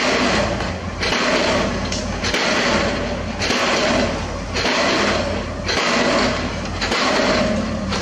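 Diesel pile hammer firing in a steady rhythm, about one blow every 1.1 seconds, each blow followed by about a second of noise before the next.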